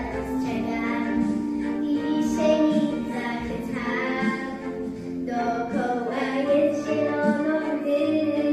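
Young girl singing a song into a microphone over recorded backing music.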